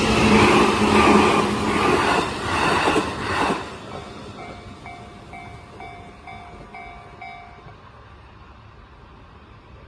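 Train passing over a Japanese level crossing, loudest in the first three and a half seconds and then dying away. Under it and after it, the crossing's warning bell rings in a steady ding about three times a second, then stops near eight seconds in.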